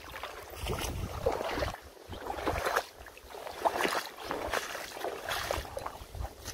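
Water splashing and sloshing in repeated strokes, roughly one a second.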